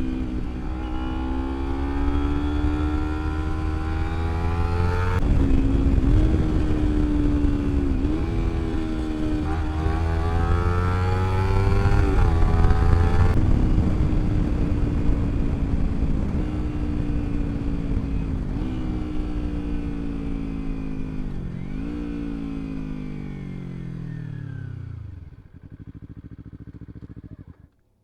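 Kawasaki Ninja 250R parallel-twin engine through a slip-on exhaust with the dB killer removed, accelerating hard and shifting up, pitch rising in steps. Then the throttle closes and it slows for a long stretch with a couple of short blips, and the pitch drops steeply near the end before the sound cuts off.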